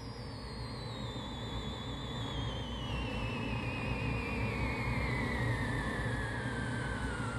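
Sound-effect whistle wavering as it glides steadily down in pitch, over a low rumble, swelling in loudness.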